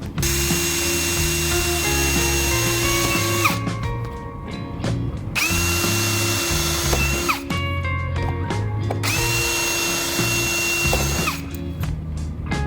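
Electric power tool, such as a drill, running in three bursts of two to three and a half seconds, each a steady whine that drops in pitch as the motor stops. Background music with a bass line plays under it.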